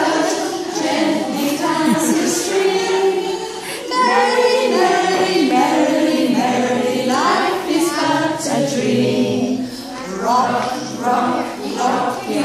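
A group of adults and small children singing a nursery rhyme together.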